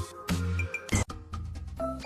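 Background music with a bouncy bass line and short plucked notes, and a sharp hit about a second in.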